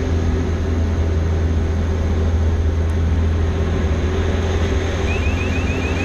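Steady drone of a Robin R2160's four-cylinder piston engine and propeller, heard inside the cockpit with wind noise over the canopy, during a barrel roll.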